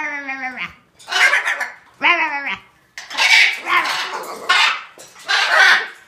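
Hyacinth macaw imitating a dog's bark: a run of about five loud barks roughly a second apart, some with a falling pitch, others harsh and raspy.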